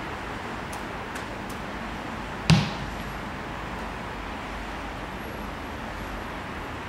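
A single sharp thud about two and a half seconds in, with a short ring after it: an American football being punted. Steady outdoor background hiss runs under it.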